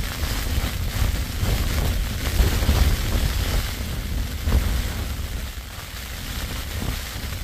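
Very strong wind buffeting a Tarptent Scarp tent, heard from inside: irregular gusts shake the tent over a deep, continuous rumble. The wind eases a little after about five seconds.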